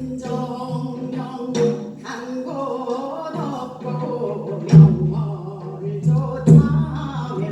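Gyeonggi minyo (Korean folk song) sung by a female voice in long, wavering held notes, accompanied by janggu hourglass-drum strokes. Three sharp drum strokes land at about a second and a half, near five seconds and past six seconds, the later two with a deep bass thud.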